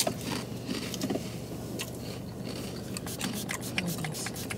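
Crinkling and crackling of a plastic snack bag of sour cream and onion rings being opened and handled, a run of sharp irregular ticks over the steady low hum of a car.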